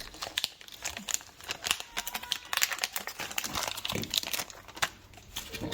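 Plastic packaging crinkling and tearing as a small parts bag is opened by hand, a quick irregular run of crackles.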